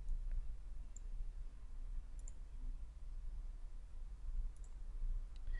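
A few faint computer-mouse clicks, spread out over a low steady hum.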